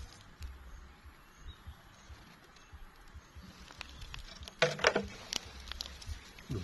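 A stick knocking against a plastic tub as a tarantula is lowered into it: a cluster of sharp knocks about two-thirds of the way in, with scattered lighter clicks and low rumble around them.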